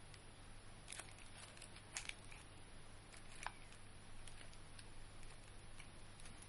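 Near silence: faint steady hiss and low hum of room tone, with a few soft short clicks about one, two and three and a half seconds in.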